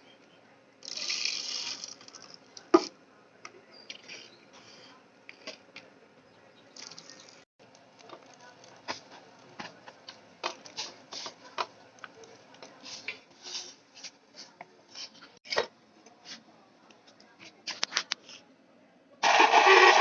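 Scattered clicks, taps and knocks of small parts being handled, with a short rush of noise about a second in. A loud, steady sound starts shortly before the end.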